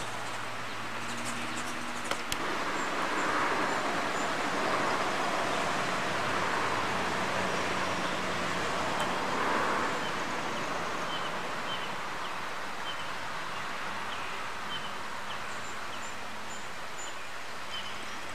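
A bird chirping, short high calls repeated about twice a second, over a steady rushing outdoor noise.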